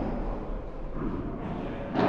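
Echoing noise of an indoor padel hall during a rally, with a padel racket hitting the ball near the end.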